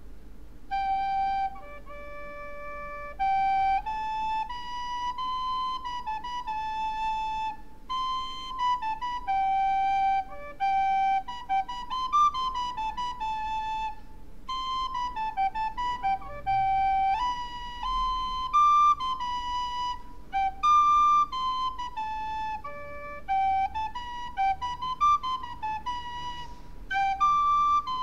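A recorder playing an improvised solo melody that is out of tune. It is a single line of held notes with small slides in pitch between some of them.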